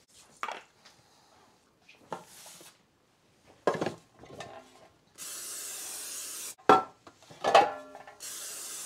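Aerosol cooking spray hissing in steady bursts of about a second and a half, coating metal loaf pans, the second burst starting near the end. Between the bursts come clanks of the metal pans being handled and set down, with a brief ring.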